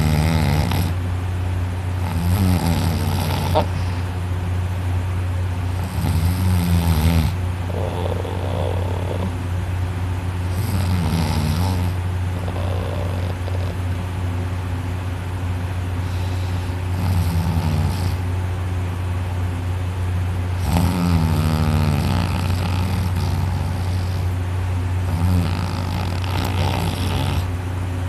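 A person snoring heavily in an alcohol-induced deep sleep, loud snores with breathy hiss coming about every three to four seconds. A steady low hum runs underneath.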